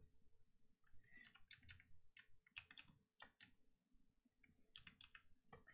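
Faint, irregular keystrokes on a computer keyboard, with a short pause a little past the middle.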